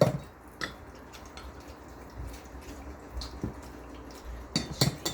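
Kitchen utensils tapping and knocking: a sharp tap at the start and another just after, then a quick run of short knocks near the end, typical of measuring out flour with a cup into a bowl.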